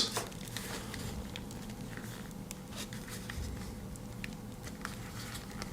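Faint rustling and scattered small clicks of a small cardboard knife box being handled and slid open like a matchbox.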